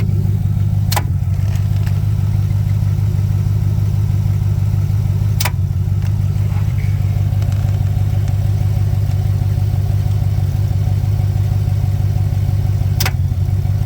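GMC Sierra AT4 pickup's engine idling steadily, with three sharp clicks: about a second in, about five and a half seconds in, and near the end.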